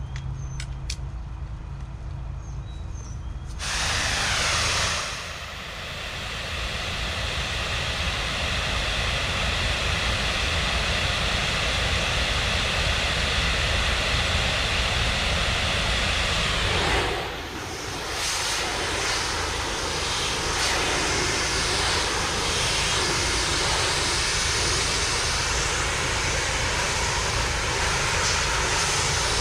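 Pressure washer engine running steadily, then about three and a half seconds in the high-pressure spray opens with a loud, even hiss as the soaped surface is rinsed. The spray dips briefly about seventeen seconds in and then runs on.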